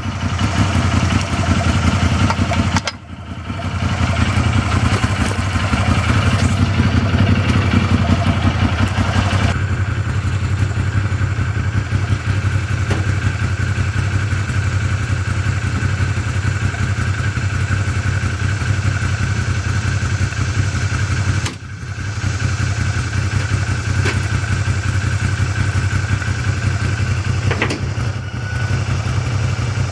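An engine idling steadily, dropping out briefly twice: about three seconds in and again past the twenty-one-second mark.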